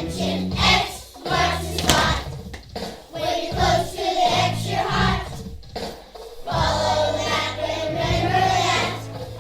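A choir of children singing a song over an instrumental accompaniment with a steady bass line.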